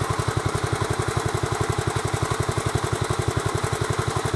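Swapped-in small engine of a Sears Suburban 12 garden tractor idling steadily, an even, rapid run of firing pulses at about a dozen a second.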